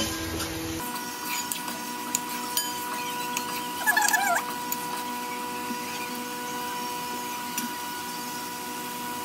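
Spatula stirring prawn masala in a metal kadhai, giving scattered sharp clicks and scrapes against the pan. A steady hum with several fixed pitches runs underneath. The loudest moment is a cluster of clicks and a short wavering sound about four seconds in.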